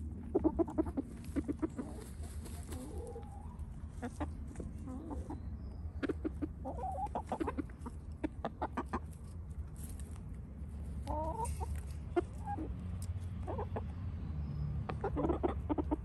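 Hens clucking in several bouts of short, quick calls while dust bathing together in dry dirt.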